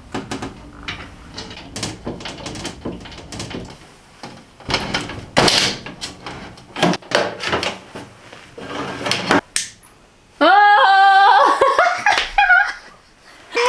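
Clicks, knocks and light rattles as grow-light fixtures, magnets and cables are handled and fitted. About ten seconds in, a woman gives a long, loud, delighted squeal and laughs.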